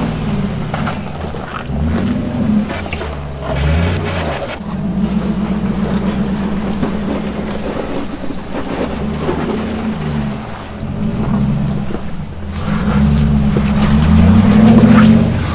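Off-road vehicle's engine revving up and dropping back again and again as the throttle is worked, with a steadier stretch midway and the loudest rise near the end.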